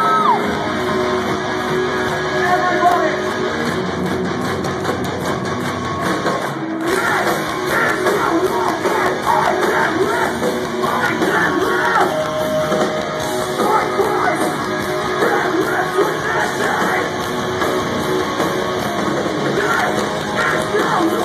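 Live heavy metal band playing loud through a club PA, with distorted electric guitars, drums and vocals. The music breaks off for an instant about seven seconds in, then carries on.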